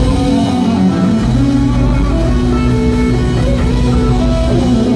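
Rock band playing live through the venue's PA, electric guitar to the fore over bass and drums, heard from within the audience.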